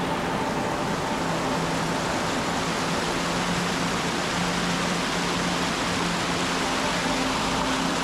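Waterfall running: a steady, unbroken rush of falling water.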